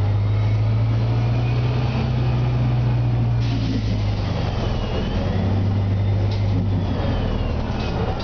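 Cabin sound of a 2003 Orion VII CNG transit bus under way: its Detroit Diesel Series 50G natural-gas four-cylinder engine runs with a steady low hum through the Voith DIWA automatic transmission. A faint whine dips and rises about five seconds in.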